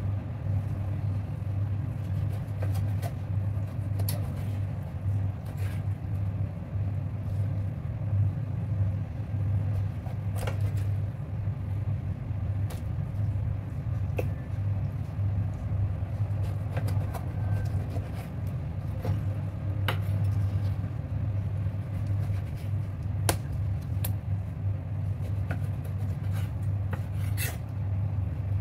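Steady low hum with scattered sharp clicks and knocks of a kitchen knife cutting raw lung on a cutting board.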